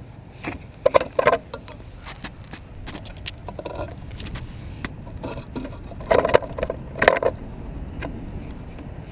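Handling noise from a camera-mounted quadcopter on the ground: a string of sharp clicks, knocks and rattles, loudest in two pairs about a second in and around six to seven seconds in, over a low steady rumble. The motors are not yet running.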